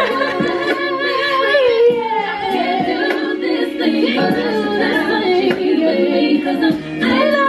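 Background music: a song with female singing over a full backing track.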